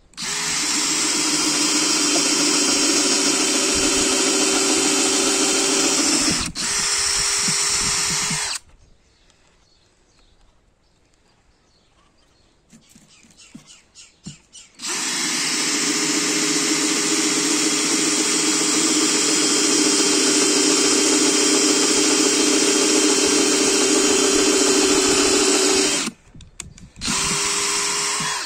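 DeWalt cordless drill driver running at steady speed, boring pilot holes with a countersink bit into a very hard wooden block. There are two long runs: one of about eight seconds with a brief dip near six seconds in, then, after a pause of about six seconds, one of about thirteen seconds with a short stop just before the end.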